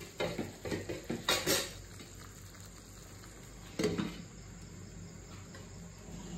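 Clinks and knocks of kitchenware against a stainless-steel kadai, then a glass lid set down on the pan with one knock about four seconds in, followed by a faint steady hiss.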